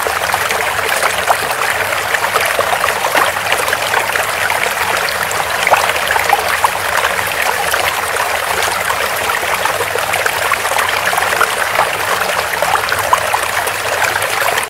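Running water trickling and splashing steadily, like a small stream, with many small irregular splashes and no change in character.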